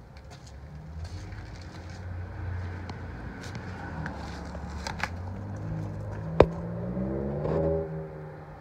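A motor vehicle engine running, its pitch rising near the end before it fades. A single sharp click about six and a half seconds in is the loudest sound.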